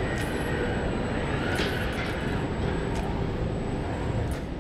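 Car body-shop line noise: a steady machinery rumble with a faint high whine, and about four short, sharp noises roughly a second or more apart as industrial robots work on a car body shell.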